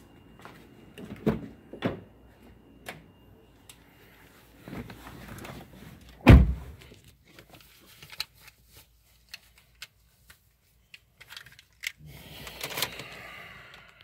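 A Honda Fit's driver door shut with a heavy thud about six seconds in, amid knocks and clicks of someone climbing into the driver's seat; rustling near the end.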